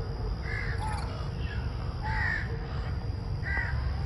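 Crows cawing, three loud calls about a second and a half apart, over a steady low rumble.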